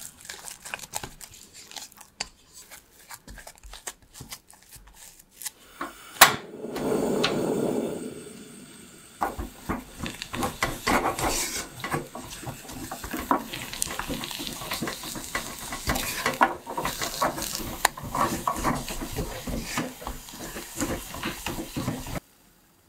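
A spatula mixes and scrapes thick choux dough in an enamel saucepan, with scattered taps against the pot. About six seconds in there is a sharp click and a brief rush of noise. From about nine seconds on comes continuous stirring and pressing of the dough on the heat, cooking the flour paste until its starch gelatinises, and this stops abruptly near the end.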